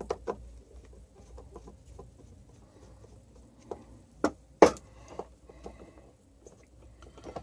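Small scattered clicks and taps of hands and a screwdriver working on a hammer drill's open plastic housing and cord clamp, with two sharper clicks a little past the middle.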